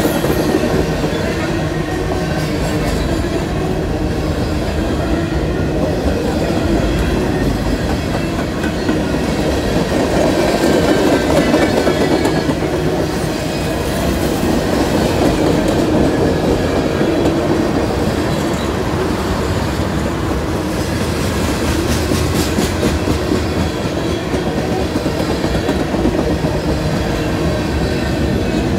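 Freight train's tank cars and covered hopper cars rolling past, a steady rumble with the wheels clicking over the rail joints.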